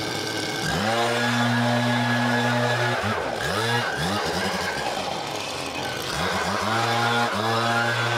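Backpack leaf blower's gas engine throttled up about a second in and held at high speed, then let off and revved up again several times in quick succession.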